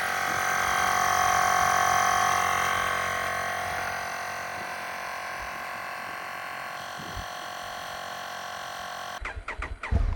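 Steady hiss of air escaping through a motorcycle tyre valve as the tyre is let down to a lower pressure for riding on gravel. It is loudest at first, eases off, and cuts off suddenly near the end.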